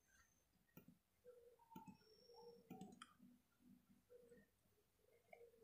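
Near silence with a few faint, scattered clicks from a laptop being operated.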